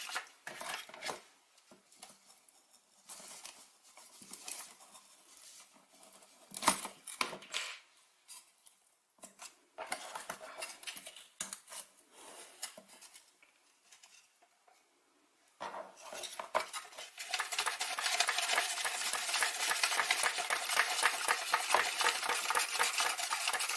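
Homemade foam-board seismometer model being shaken by hand: its frame, skewer and pen pendulum weighted with a nut rattle and click. The knocks are irregular at first, and about two-thirds of the way in they become a fast, continuous rattle.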